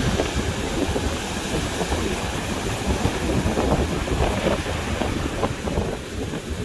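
Sea surf washing continuously, with wind buffeting the microphone as a steady low rumble.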